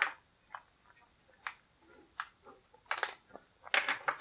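Light crinkling and clicking of a small clear plastic bag of hard plastic figure stands being handled, a few short separate sounds with quiet between them, the loudest about three and four seconds in.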